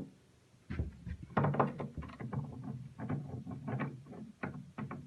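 Clutch friction disc being rocked back and forth on a gearbox shaft's splines, metal parts clacking and knocking irregularly: a check for play in a disc-to-spline fit that shows worn, burred splines.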